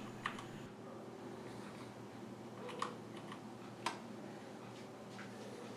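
Four scattered single key presses on an Ajazz AK510 mechanical keyboard with Zorro brown switches, the clearest two a second apart near the middle, over a faint steady hum.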